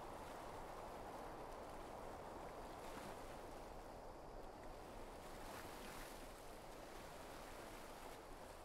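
Faint, steady water ambience: small waves lapping gently at the shore.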